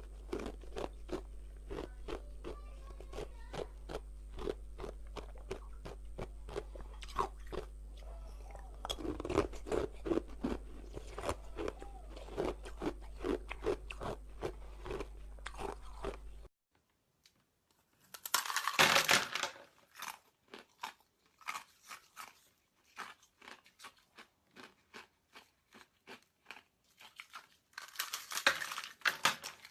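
Close-up crunching and chewing of hard ice, a rapid string of sharp cracks as the pieces are bitten and ground between the teeth, with a few louder bites in the second half. A low steady hum runs under the first half and cuts off suddenly about halfway through.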